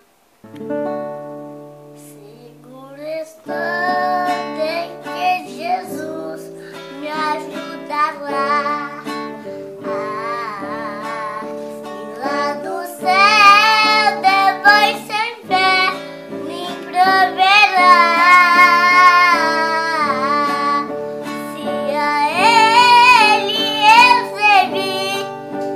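A three-year-old boy singing a Portuguese hymn of the Congregação Cristã no Brasil in a high child's voice, phrase by phrase, over steady held accompaniment chords. The chords start alone, and the voice comes in about three seconds in.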